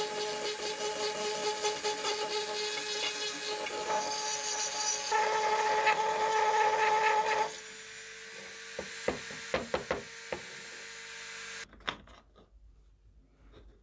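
Handheld rotary tool running at high speed, its bit scouring rust from inside the steel socket of an M1891 Mosin-Nagant bayonet, with a steady whine. About five seconds in the whine grows louder, then drops away sharply to a weaker hum with a few light knocks.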